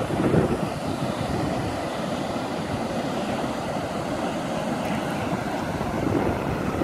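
Steady rush of ocean surf mixed with wind buffeting the microphone, a constant rumbling hiss.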